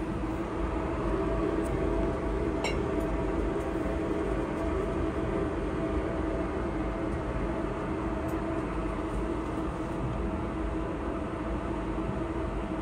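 Steady rumbling drone of laboratory ventilation with a low hum, and a faint clink of glassware about two and a half seconds in.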